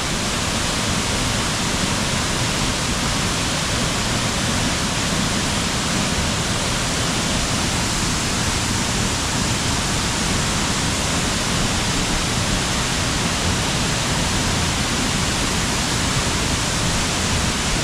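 Waterfall: falling water crashing into the pool below, a loud, steady rush.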